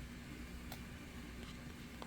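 Quiet room tone: a steady low hum with a faint hiss, and one faint click about three quarters of a second in.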